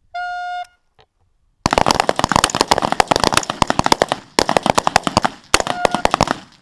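A start horn sounds briefly, and about a second later a line of rifles opens fire: many overlapping shots in rapid succession from several shooters, stopping just before the end.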